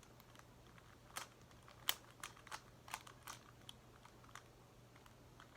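Plastic Megaminx puzzle being turned by hand: faint, irregular sharp clicks as its faces are twisted, starting about a second in. A low, steady hum runs underneath.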